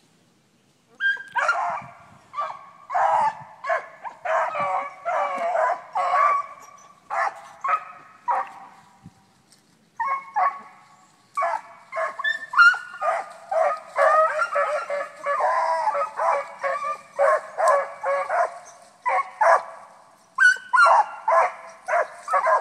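Pack of young beagles baying as they run a cottontail rabbit's scent trail. The bawling starts about a second in, has a short lull near the middle, then picks up again.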